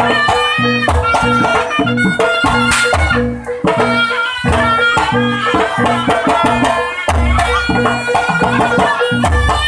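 Javanese jaranan accompaniment music: a reedy, wavering wind melody over a steady drum and gong-chime beat, with a deep stroke every couple of seconds.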